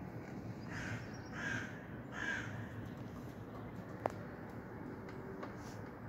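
Three harsh, caw-like bird calls about 0.7 s apart, followed about four seconds in by a single sharp click.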